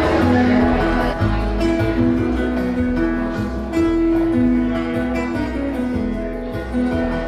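Live acoustic guitar music from a solo guitarist, strummed and picked, with notes held over a steady rhythm.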